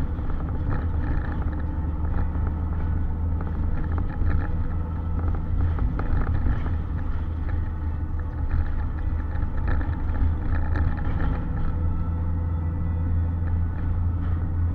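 Steady low rumble of engine and tyre noise inside a moving car's cabin, with faint ticks and rattles over it.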